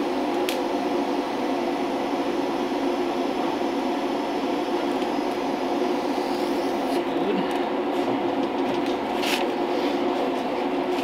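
Electric welding arc crackling as a steel body pillar is welded, over a steady droning hum; the arc stops about six and a half seconds in. After it, a few metallic clicks and one sharper knock as the welded joint is handled.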